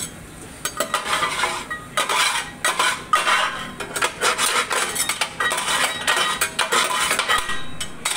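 Metal spatula scraping and knocking on a steel teppan griddle plate, many quick clicks and scrapes in an irregular run, as food residue is scraped off the plate.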